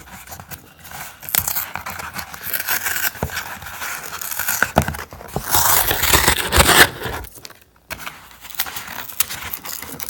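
A cardboard and paper package being opened by hand: irregular tearing, scraping and crinkling with sharp clicks. It is loudest a little past the middle, then briefly drops away.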